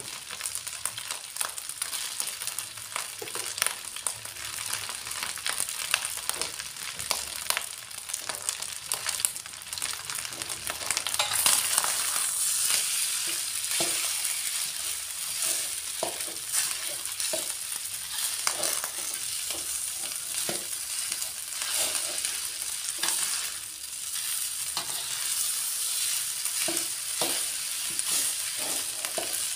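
Rice frying in a wok with a steady sizzle, while a metal spatula scrapes and knocks against the pan as the fried rice is stirred and turned. The sizzle grows louder about a third of the way through.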